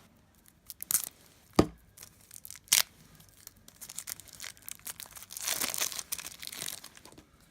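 Wrapping being torn open on a pack of game cards. There are a few sharp snaps in the first three seconds, then a longer stretch of crinkling and tearing from about five to seven seconds in.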